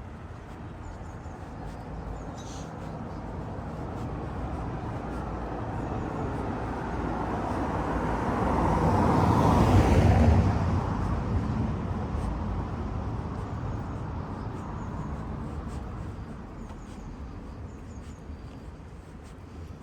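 A motor vehicle passing by on the road: its engine and tyre noise swell slowly, are loudest about halfway through, then fade away.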